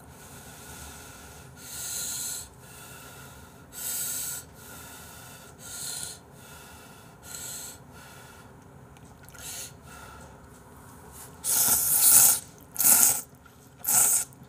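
A person slurping hot ramen noodles: short airy bursts about every two seconds, then three louder slurps in quick succession near the end.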